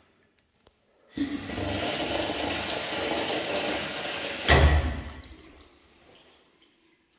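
A toilet or urinal flushing: water rushing steadily for about three seconds, then a sudden loud surge about four and a half seconds in, fading away over the next second or so.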